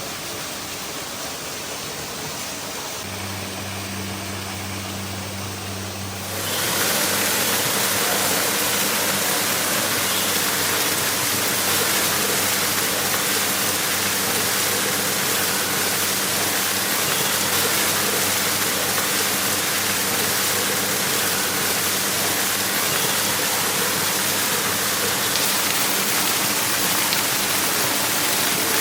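Waterfall in a tropical aviary rushing and splashing as a steady noise. It gets louder and brighter about six seconds in. A low steady hum runs underneath.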